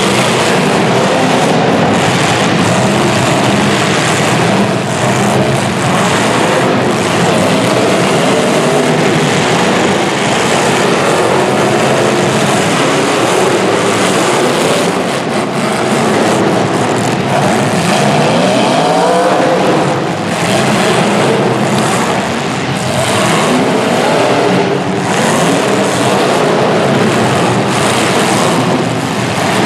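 Several demolition derby cars' engines running hard and revving, with a rising rev about two-thirds of the way through.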